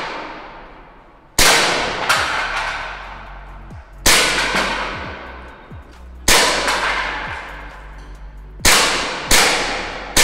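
Beretta M92A1 CO2 air pistol firing single shots: about six sharp cracks at uneven intervals of one to two seconds, each ringing on in a long echo off the range's walls.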